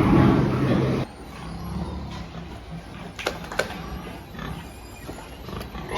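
Pigs grunting. The sound is loud for about the first second, then drops suddenly to quieter grunting with a couple of sharp clicks near the middle.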